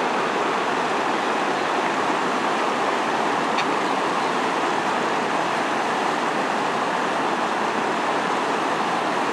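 Steady rush of a fast-flowing river running high and swollen after heavy rain.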